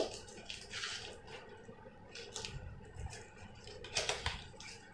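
Cardboard carton being pulled open by hand: scattered scrapes and crackles of the flaps and tape, the loudest about four seconds in.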